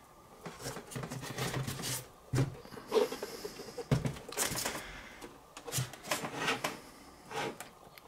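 Handling noises from a computer monitor and its packaging: uneven rustling and scraping, with several sharp knocks, the clearest three between about two and four seconds in.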